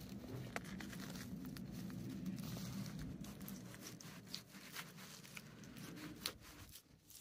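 Tearing and crackling with scattered clicks and snaps as a wild turkey carcass is worked apart by hand at the leg joint. A low rumble runs underneath and stops near the end.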